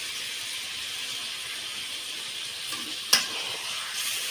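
Raw chicken pieces sizzling in a metal kadai with a steady hiss. About three seconds in a sharp metallic knock, the loudest moment, comes as a spatula starts stirring the pieces against the pan.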